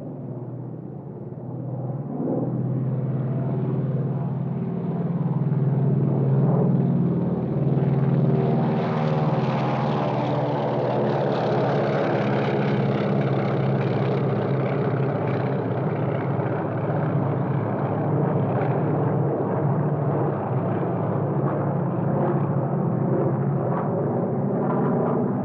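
An airplane's engine droning in flight, growing louder over the first several seconds and then holding steady and loud.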